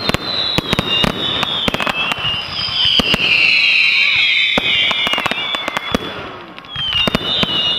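Firework display going off: a rapid string of sharp bangs and crackles from bursting shells. Several high whistles overlap on top, strongest about three to five seconds in, dropping away around six seconds and returning near the end.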